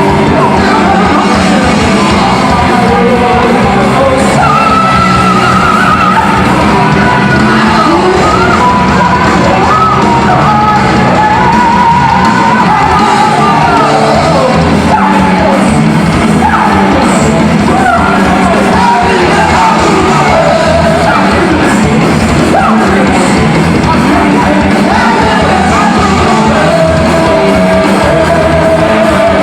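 Heavy metal band playing live at full volume, with a high sung and yelled lead vocal over the band.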